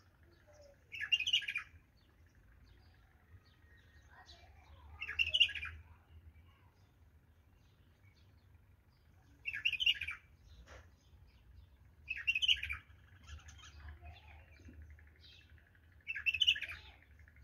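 A bulbul singing: five short song phrases, each under a second and a few seconds apart, with fainter chirps between them.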